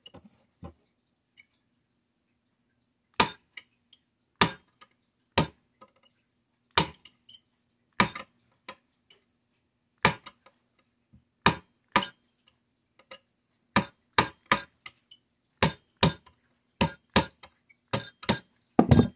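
A small screwdriver hammer tapping a pin punch to drive out the cocking-lever pin of an HW30s air rifle. It makes about twenty sharp clinks, roughly a second apart at first and quicker near the end. The pin is tight and barely moving.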